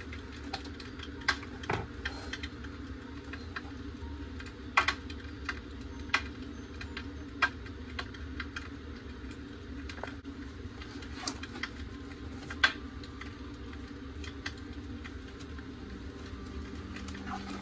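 Sporadic light clicks and taps of hands handling small items on a counter, about a dozen at irregular intervals, over a steady low hum.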